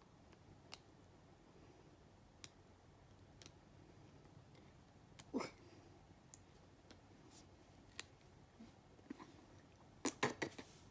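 Faint, scattered clicks and small crinkles of fingernails picking a paper seal off a small plastic tube of face cleanser, with one brief louder sound about halfway and a quick cluster of louder clicks near the end.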